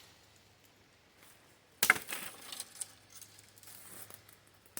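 A single sharp knock about two seconds in, followed by a few faint clicks and handling rustles.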